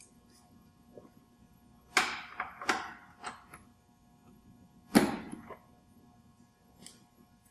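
Several separate metallic knocks and clanks from a wrench working the rubber track's cam tensioner, the loudest about five seconds in.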